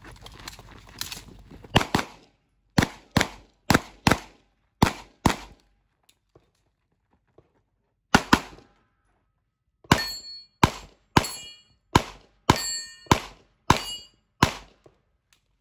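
A pistol fired in quick strings, about eighteen shots with a pause in the middle as the shooter moves through a practical-shooting stage. The later shots are followed by a ringing metallic clang: steel targets being hit.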